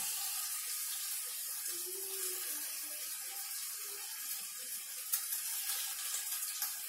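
Water spinach sizzling steadily in a hot wok, with a single light clink about five seconds in.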